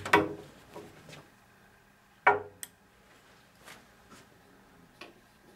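Several sharp clinks and knocks of small metal parts and tools being handled and set down on a workbench. The two loudest come just after the start and a little over two seconds in, with fainter ones between and after.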